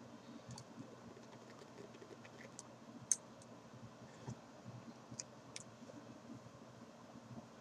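Faint scattered clicks and crackles while a dual-coil rebuildable dripping atomizer is vaped, with one sharper click about three seconds in. The wick is too wet.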